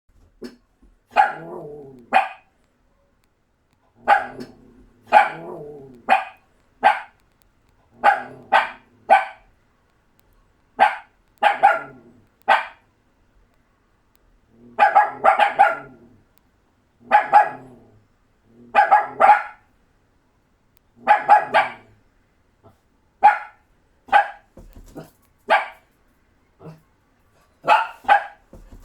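Doberman puppies barking: short, sharp barks in clusters of one to three, a cluster every second or two, with dead silence between them.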